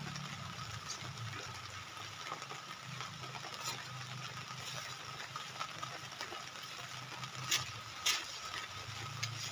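A few sharp knocks and clicks of hand tools being handled and rummaged for, the loudest two about seven and a half and eight seconds in, over a steady low hum and a faint hiss.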